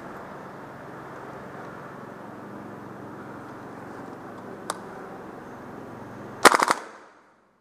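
Airsoft rifle firing a quick burst of about five shots near the end, after a steady low hiss broken by one sharp click.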